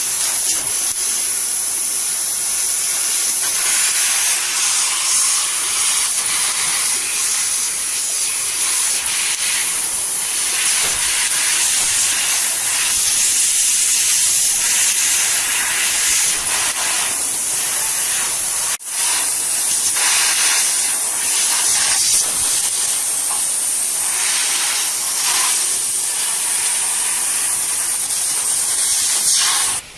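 Steady loud hiss from a laser cutting machine at work, with a momentary break a little past midway.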